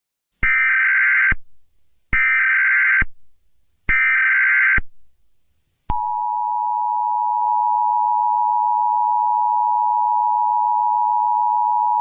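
Emergency Alert System broadcast tones: three short bursts of screeching SAME header data, each about a second long with a gap between. About six seconds in, the steady two-tone EAS attention signal begins and holds.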